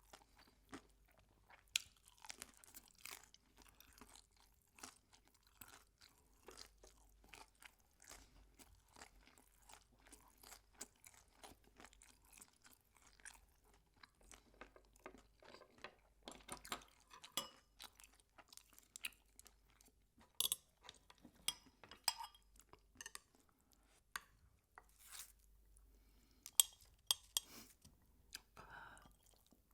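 Close-miked crunching and chewing of crispy fried chicken skin: many short, irregular crunches, a few of them sharper and louder in the second half.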